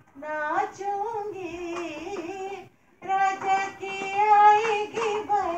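A woman singing a slow melody with long held notes, in two phrases with a short pause for breath between them.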